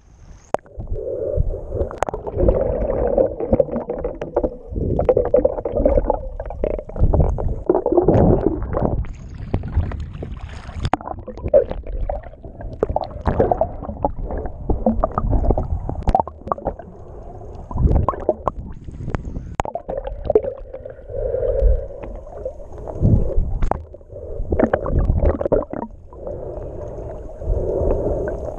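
Muffled underwater water noise heard through a submerged action camera's waterproof housing: a low rumble with surges of gurgling and irregular knocks as the camera moves through shallow sea water.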